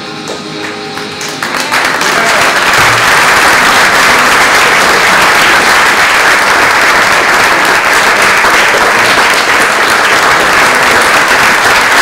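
Music with guitar ends about a second and a half in, and an audience breaks into loud, steady applause.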